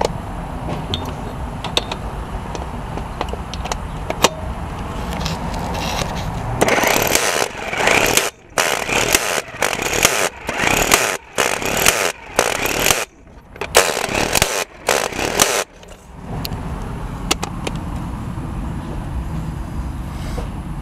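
A 12-volt corded impact wrench running in about ten short, loud bursts as it runs a lug nut back onto a wheel stud. The bursts begin about six seconds in and stop about sixteen seconds in, over a steady low rumble.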